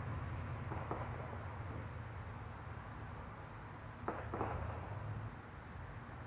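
Outdoor ambience: a steady low rumble under a faint, high, evenly pulsing insect trill, with a couple of short knocks about four seconds in.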